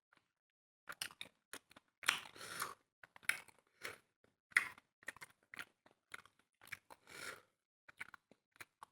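Close-up eating sounds: a person chewing and crunching food, with irregular mouth clicks and several longer crunchy bites.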